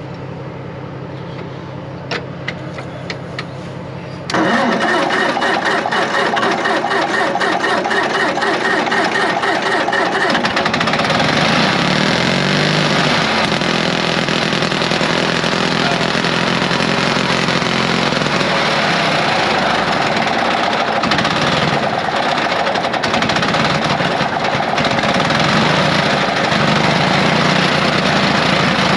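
Engine of a 1950s Caterpillar D6 cable dozer starting up: a loud, steady mechanical clatter sets in suddenly about four seconds in, changes character around ten seconds in, and runs on.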